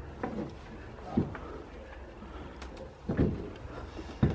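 A few slow, dull footsteps thudding on old wooden boards, spaced irregularly one to two seconds apart.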